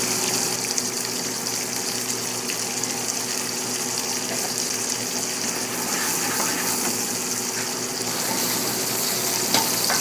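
Shrimp and vegetables sizzling in butter in a sauté pan over a gas burner, a steady hiss over a faint hum. Near the end there is a brief clatter as the pan is tossed.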